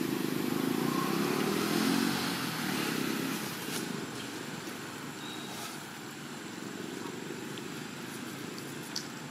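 A motor vehicle's engine passing, loudest for the first three seconds and then fading away, leaving a steady outdoor background with a few faint clicks.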